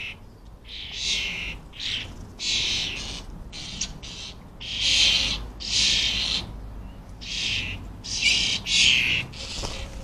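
European starling fledglings begging: about ten harsh, rasping calls, roughly one a second, each lasting about half a second.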